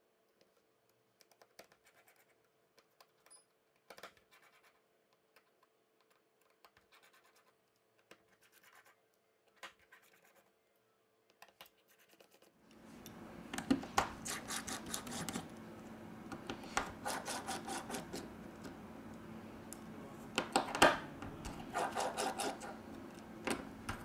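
Small precision screwdriver scraping and clicking as screws are backed out of a Blackview BV5000's middle frame, with light knocks from handling the phone. Faint scattered clicks at first; from about halfway the clicks and scrapes are louder over a steady background hum, with quick runs of strokes near the end.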